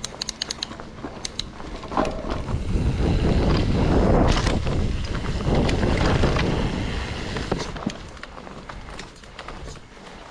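Mountain bike ridden fast down a dirt trail: wind buffeting the camera's microphone with tyre noise, swelling about two seconds in and easing off near the end. Sharp clicks and rattles from the bike over the rough ground come through at the start and again near the end.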